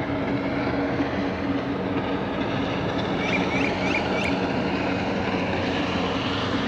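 A steady motor drone with a low hum running under it, and a short run of about four high chirps about halfway through.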